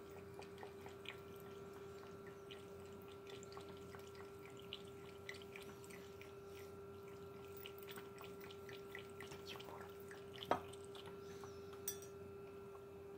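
Cat lapping water from a glass measuring jug: a quiet, irregular run of small wet clicks, with two sharper knocks near the end, over a steady low hum.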